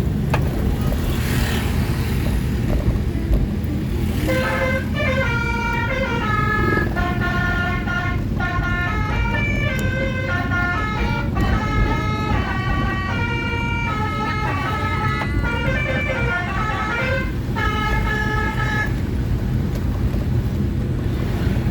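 Basuri multi-trumpet air horn tooting a melody of changing notes, starting about four seconds in and stopping near the end, over a steady engine rumble.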